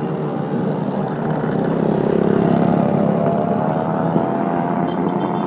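Motorbike and scooter engines running as they ride past, one engine rising in pitch and loudest about two to three seconds in.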